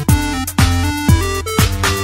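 Electronic dance music with a heavy kick drum about twice a second under a synth melody.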